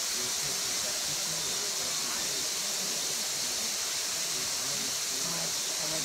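Steady, even high-pitched hiss of outdoor ambience by the waterfall pool, with distant voices faint underneath.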